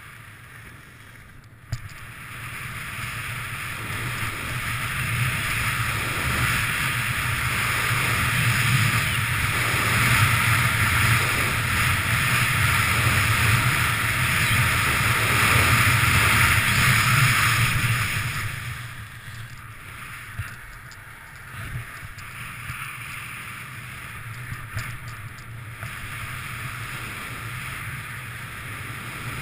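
Skis hissing and scraping over freshly groomed corduroy snow, with wind rushing across the microphone at speed. It grows louder over about fifteen seconds, then drops off sharply, with a single click about two seconds in.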